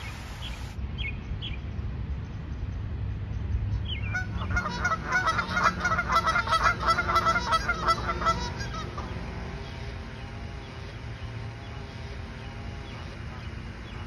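Canada geese honking in a quick run of repeated calls, loudest from about four seconds in to about eight seconds, then dying down.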